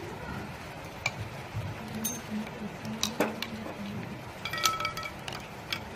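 Steel pliers clinking against a gas stove's metal pipe fitting as a tight nut is worked loose with two pliers. The clinks are scattered, about one a second, and a quick cluster near the end rings briefly.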